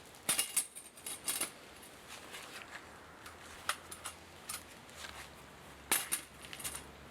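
Light metallic clinks and taps of cooking utensils against cookware: a quick cluster in the first second and a half, then a few single clinks later.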